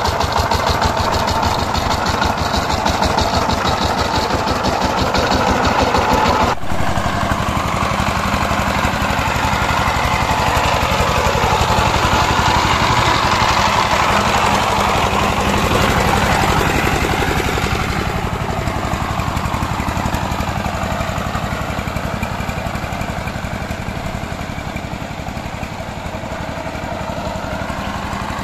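Power tiller's diesel engine running steadily with an even, rapid firing pulse while it works the soil. The sound changes suddenly about six seconds in, and the level eases off a little in the last third.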